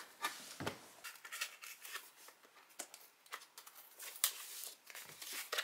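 Scissors snipping and working at a tightly wrapped parcel, a run of irregular short snips and clicks with a soft knock just under a second in. The wrapping is packed so heavily that it is hard to cut open.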